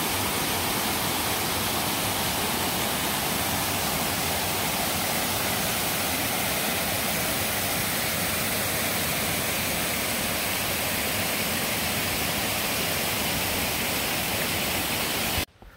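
Thoreau Falls: water rushing and cascading over granite slabs in a steady, even roar. It cuts off suddenly near the end.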